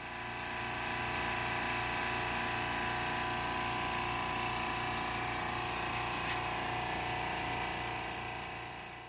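Wood lathe running steadily with a steady motor whine, turning a wooden root-and-resin vase; a single click about six seconds in. The sound fades in at the start and fades out near the end.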